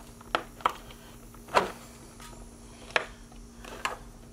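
New engine air filter being wiggled into the plastic air box of a Chevy Cruze: five short plastic knocks and clicks as the filter frame bumps against the housing, the loudest about a second and a half in. The brand-new filter is a tight fit.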